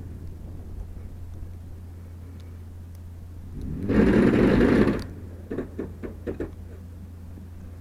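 2005 Kia Sorento drivetrain with a steady low hum, a loud crunching surge of about a second roughly four seconds in, then a quick run of about six knocks. This is the crunch of a stretched chain in the TOD transfer case, a transfer case the owner calls dying.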